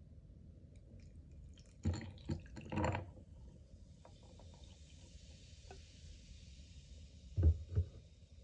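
Mountain Dew poured from a plastic bottle onto ice in a glass: splashing on the ice for about a second, then a steady fizzing hiss of carbonation that slowly fades. Two knocks near the end as the bottle is set down on the table.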